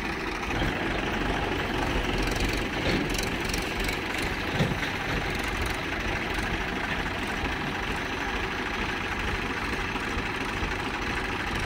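Diesel tractor engines running with a steady, knocking idle, with a few brief clicks about three seconds in.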